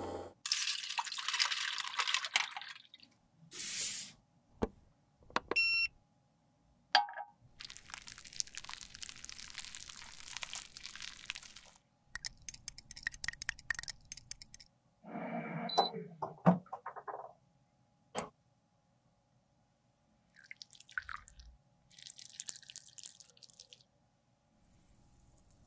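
A string of short close-miked lipstick-remaking sounds: water and liquid noises around lipstick parts in an ultrasonic cleaner's bath, a short electronic beep, quick clinks and scrapes of a metal rod stirring melted red lipstick in a glass beaker, and melted lipstick pouring into a metal mold near the end.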